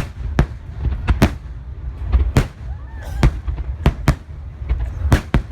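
Fireworks shells bursting in quick succession: about nine sharp bangs, roughly one a second and sometimes two close together, over a continuous low rumble.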